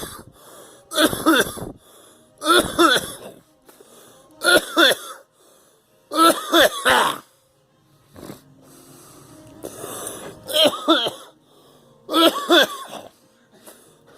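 A person coughing in repeated fits: about six bouts of two or three coughs each, each cough carrying a voiced, wavering tone. The fits come every second or two, with a longer pause in the middle.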